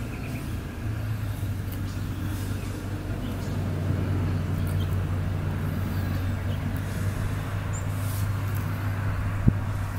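A steady low mechanical hum, like a motor or engine running, with one sharp click about nine and a half seconds in.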